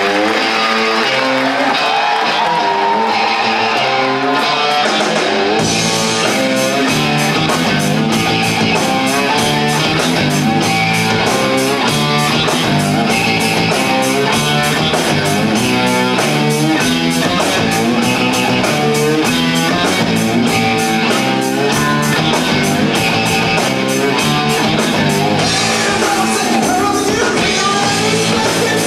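Live rock band playing: quick electric guitar and bass riffs, with the drum kit's cymbals joining in steady time about five seconds in.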